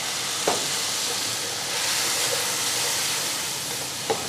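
Onion, tomato and spice masala in hot oil sizzling and hissing in a steel pot just after a little water has been poured in, with a wooden spoon stirring it and knocking against the pot about half a second in and again near the end.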